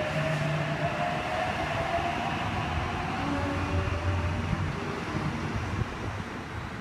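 NSW TrainLink H-set (OSCAR) double-deck electric train running past along the platform: a steady rumble with a whine that rises in pitch over the first few seconds. It fades near the end as the last cars go by.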